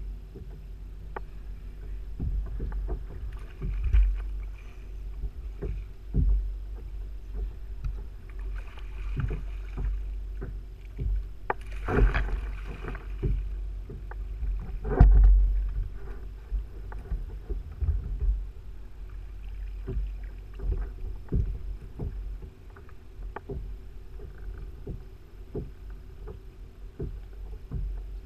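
Knocks and bumps on a plastic fishing kayak as the angler handles rod, gear and a just-hooked fish, over a low wind rumble on the microphone. There is a brief noisy burst about twelve seconds in, and the loudest thump comes a few seconds later.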